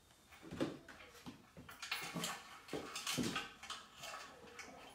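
A dog making a few short sounds over light clattering and knocking.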